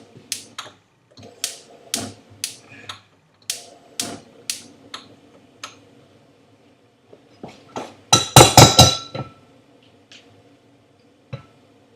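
Kitchen utensils and cookware knocking on hard surfaces in a string of separate knocks and clicks, then a loud, dense clatter of metal with a ringing tone about eight seconds in, like a pan and utensils being handled.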